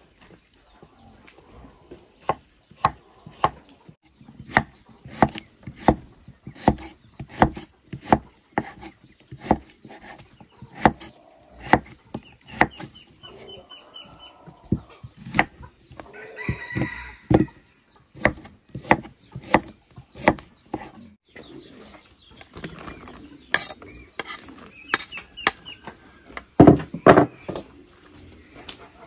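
A run of sharp knocks, roughly one a second, with a rooster crowing once about midway.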